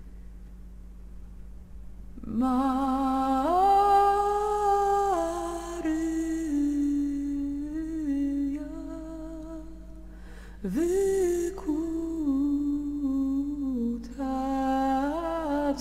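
A woman's voice humming a slow, wordless melody, holding long notes with vibrato. It starts about two seconds in and breaks briefly about two-thirds of the way through, over a faint steady low hum.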